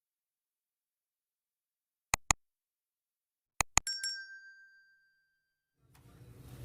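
Two pairs of sharp clicks, the second pair ending in a short metallic clink that rings and dies away over about two seconds; music begins to fade in near the end.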